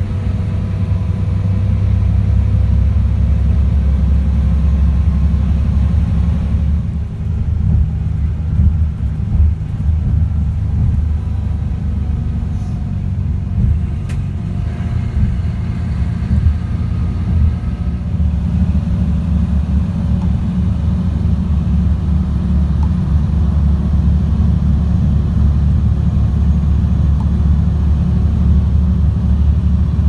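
Steady low rumble of road and engine noise heard inside a coach cruising along a motorway. It turns duller for several seconds about seven seconds in.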